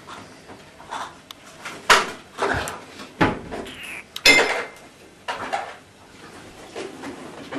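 Household clatter: a series of sharp clinks and knocks, the loudest about two seconds in and again about four seconds in, with lighter rattling between them.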